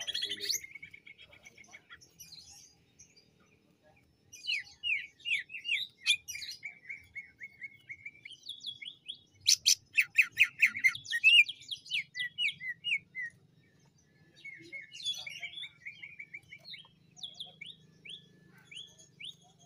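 Male cucak ijo (green leafbird) singing in bursts of rapid, varied chirping phrases, broken by a few pauses of a second or two; the loudest, fastest run comes about halfway through.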